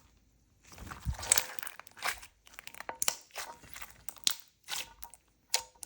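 Stiff, putty-like slime being squeezed and pulled by hand, giving a run of irregular crackles and pops.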